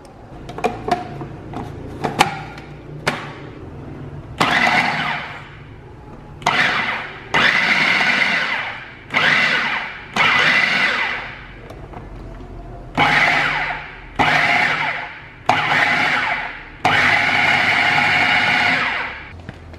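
Food processor pulsing butter, flour and egg yolk into tart-crust crumbs: about nine short runs of the motor and blade, the last one the longest. A few sharp clicks from the bowl and lid come first.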